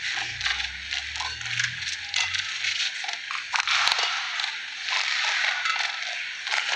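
Badminton rally: sharp cracks of rackets striking the shuttlecock, the loudest about four seconds in, over a steady hiss of arena crowd noise.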